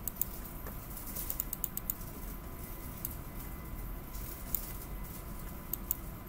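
Scattered clicks of a computer mouse and keyboard, several in a quick run about a second and a half in, over a faint steady whine.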